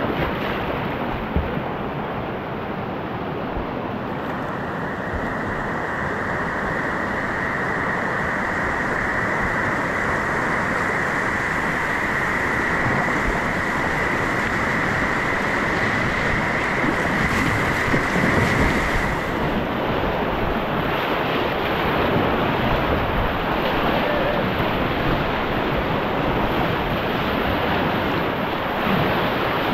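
Whitewater river rapids rushing around a kayak: a loud, steady hiss of moving water that turns brighter about two-thirds of the way through.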